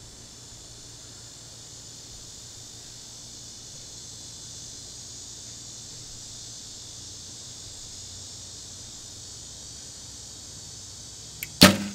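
Recurve bow shot about a second before the end: a faint click, then a loud sharp crack of the string and limbs with a short low hum of vibration after it, from a riser whose Beiter V-Box dampers hold the stiffest (#7) membrane, too stiff for its 3 to 4 ounces of stabilizer weight, so the shot comes out quite loud and full of vibration. Before the shot, a steady high drone of insects.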